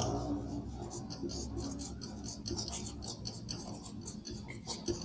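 Marker pen scratching and squeaking on a whiteboard as words are written: faint, irregular short strokes over a low room hum.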